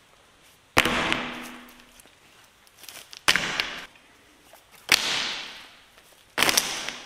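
Hydraulic hoses with metal end fittings tossed one at a time onto a concrete floor: four separate slaps and clatters, each dying away over about a second.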